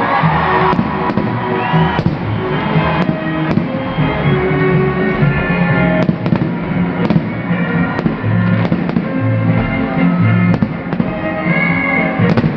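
Fireworks salute bursting: many sharp bangs at irregular intervals over loud, steady music.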